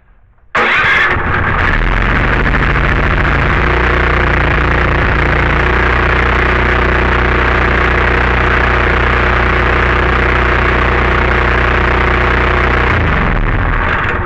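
Small gasoline engine on a pressure washer, a new replacement engine, starting abruptly about half a second in and running steadily at a constant speed. Near the end it is shut off and winds down.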